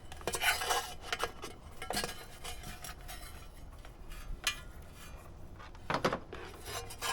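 Rubbing, scraping and light metallic clinks of a wiring lead being fed through the wiring hole in a gasoline heater's metal mounting turret, with a couple of louder knocks about six seconds in.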